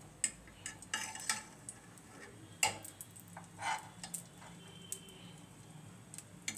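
Metal spoon scraping and tapping in a metal pan as a lump of ghee is pushed in, a few scattered clicks and soft scrapes.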